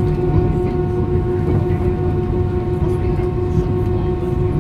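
Cabin noise of an Airbus A320-232 taxiing, heard inside the cabin. Its IAE V2500 turbofans run at low power with a steady whine of several tones over a low rumble.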